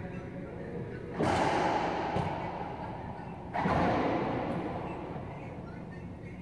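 Two loud racquetball shots about two and a half seconds apart, each a sharp pop of the rubber ball off racquet and wall that rings on in the enclosed court's echo.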